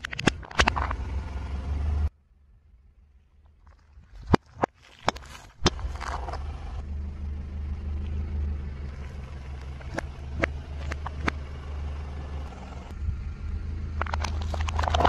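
A car engine idling with a low steady hum while its tyre rolls over and crushes objects, giving scattered sharp cracks and crunches. A few very loud snaps fall in a quieter stretch a few seconds in, and a dense run of crackling comes near the end.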